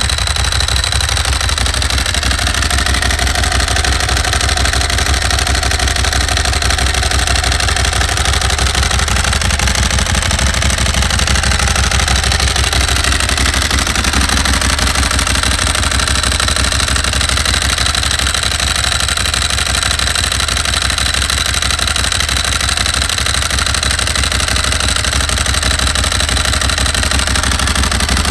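Ducati 1098S Tricolore's L-twin engine idling steadily through a Termignoni exhaust, with an even pulsing beat that holds the same speed throughout.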